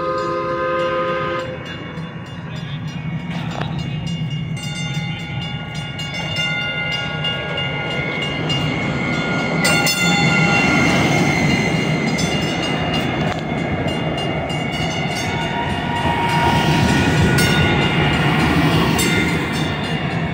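DART light-rail train coming into the platform. Its horn sounds a short chord at the very start. Then come the rumble of steel wheels on rail and a steady whine of several tones from its electric drive as the cars roll past, loudest about halfway through and again near the end.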